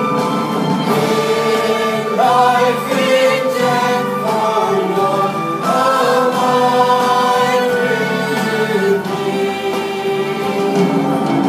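Choir singing in harmony, several voices holding long notes that shift from chord to chord.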